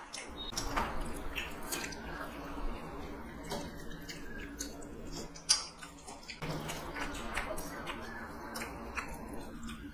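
Wet, clicky eating sounds of two people eating rice and chicken curry with their hands: fingers mixing rice on steel plates and mouths chewing. A sharp click about five and a half seconds in.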